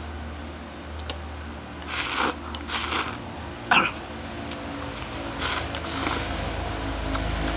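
A person eating from a bowl held to the lips with chopsticks: a few short, loud slurps and sucking sounds between two and four seconds in, with chewing.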